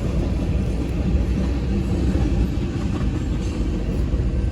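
A long train rolling past with a steady, continuous rumble and some clickety-clack of the wheels.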